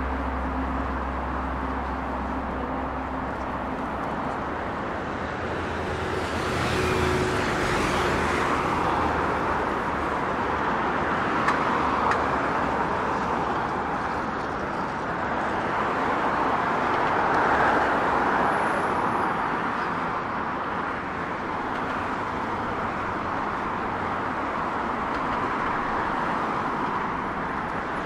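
Continuous road traffic on a busy city avenue: a steady hiss of tyres and engines that swells a few times as vehicles pass close by.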